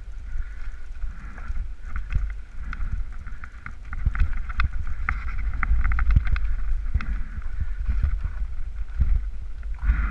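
Mountain bike clattering and bumping down a rough, rooty singletrack descent, with heavy rumble from bumps and wind on the camera microphone and many sharp knocks and rattles. It gets rougher and louder from about four seconds in.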